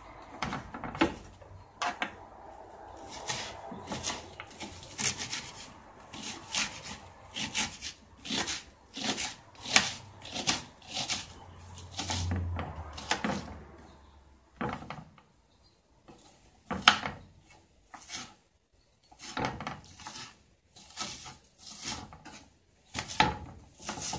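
Kitchen knife chopping a red onion on a wooden cutting board: a run of sharp knocks on the board, about two a second, broken by short pauses after the middle.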